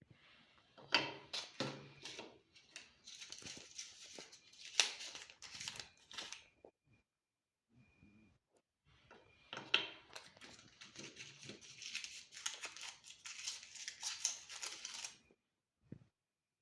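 Plastic chocolate-bar wrappers being torn open and crinkled, in two spells of rustling and tearing with a pause between.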